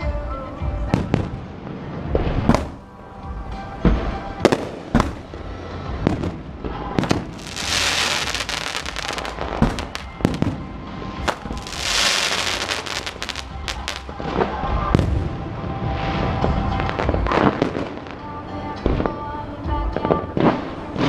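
Fireworks display: aerial shells bursting in a steady run of sharp bangs, with two stretches of dense crackling around the middle. Music plays underneath.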